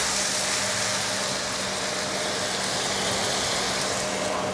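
Chicken and onions sizzling in a stainless steel pan over a gas flame, over a steady mechanical hum. The sizzle dulls near the end as a glass lid goes on the pan.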